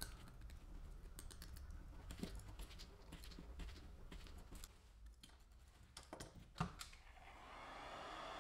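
A small metal blade scraping and clicking around the rim of a blue-coated ball bearing, trimming off the coating: a run of short, irregular clicks with one louder click near the end. About seven seconds in, a steady motor hum starts up and holds.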